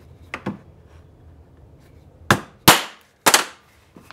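Ball peen hammer striking a steel hole punch through gasket material into a wood block: two light taps, then three sharp, ringing metal knocks in quick succession about two and a half seconds in.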